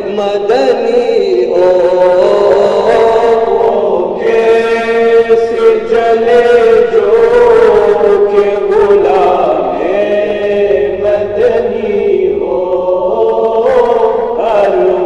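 A group of voices singing an unaccompanied Urdu naat in chorus, on long held notes that slide slowly from pitch to pitch.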